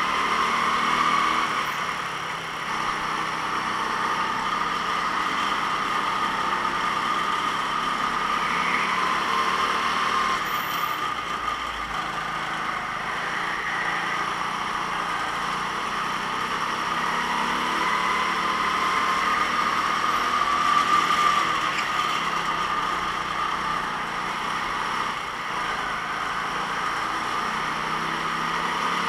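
Go-kart engine running continuously, its note rising and falling as the kart speeds up and slows.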